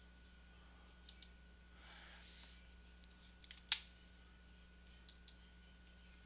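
Computer mouse and keyboard clicks: a quick pair of clicks about a second in and another near the end, a few lighter taps around the middle and one louder key press just after, with a short soft hiss in between. A faint steady electrical hum underneath.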